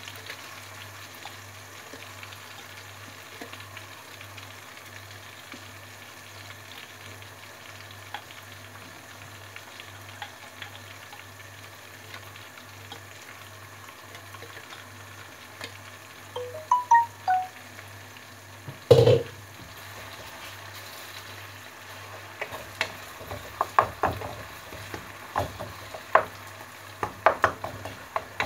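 Oil frying chillies in a wok, a steady sizzle throughout. About two-thirds of the way in there is a single loud knock, and toward the end a wooden spatula stirs the wok with a run of short knocks and scrapes against the pan.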